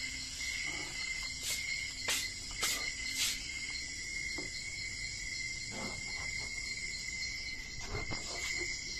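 Metal spatula scraping and knocking against a frying pan while stirring thick spaghetti sauce. Strokes come about every half second in the first few seconds, then more sparsely. A steady high-pitched drone runs underneath.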